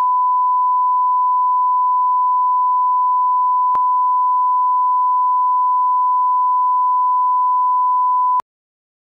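Steady 1 kHz line-up tone played with colour bars at the head of a broadcast tape, used as the reference for setting audio levels. It holds one pitch and cuts off suddenly near the end, with a faint click partway through.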